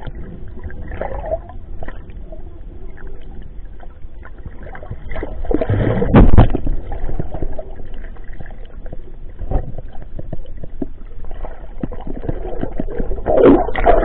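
Water sloshing and gurgling around the microphone, in irregular surges, with louder bursts about six seconds in and again near the end.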